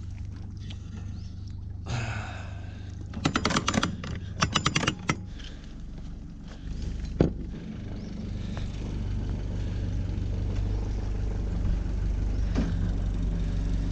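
A sailboat's Westerbeke diesel engine idles steadily. About three seconds in, a couple of seconds of rapid metallic clanking from anchor chain at the bow are heard, then a single sharp knock a couple of seconds later.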